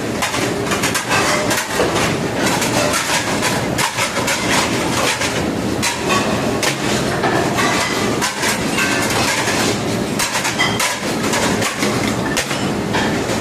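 Busy cruise-ship galley: a loud steady roar of kitchen machinery and ventilation with frequent irregular clatter and knocks of metal pans and utensils.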